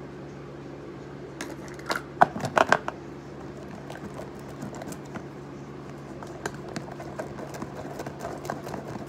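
A thin stick stirring glue and borax activator into slime in a clear plastic tub, clicking and tapping against the plastic, with a quick cluster of louder clicks about two to three seconds in and lighter ticks after, over a steady low hum.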